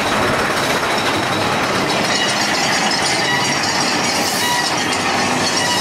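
Mine-train roller coaster cars running along their steel track, heard from on board: a steady rumble and clatter of the wheels, with a faint high squeal coming in from about two seconds in.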